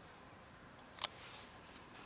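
Quiet background with a single sharp click about halfway through and a faint high tick shortly after.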